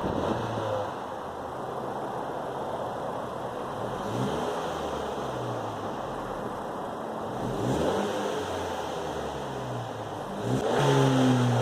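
10th-generation Honda Civic's 1.5-litre turbocharged four-cylinder exhaust at idle, blipped up in short revs four times, about every four seconds; the last rev, near the end, is the loudest.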